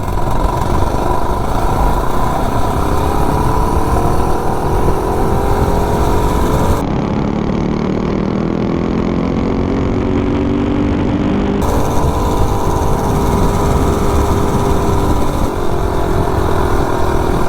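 Modified 98cc three-horsepower mini bike engine (billet flywheel, performance cam, governor removed) running hard while riding, with heavy wind rumble on the microphone. The engine note holds high, dropping lower and duller for a few seconds in the middle before climbing again; the bike is at or near its top speed, topped out on its gearing.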